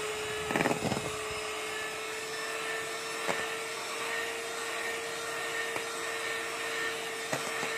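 Electric hand mixer running steadily, its beaters whipping boiled icing in a stainless steel bowl: a steady motor whine with a few light knocks.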